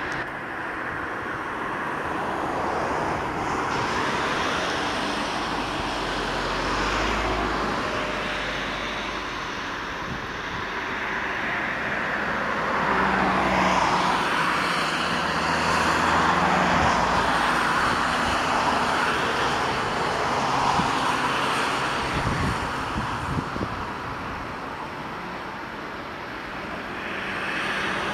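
Road traffic passing: car tyre and engine noise rising and fading as several vehicles go by.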